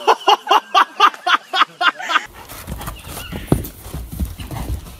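A person laughing hard in quick rhythmic bursts, about four a second, for two seconds. The sound then cuts to a horse bucking on a lunge line, its hooves thudding on the dirt over a low wind rumble.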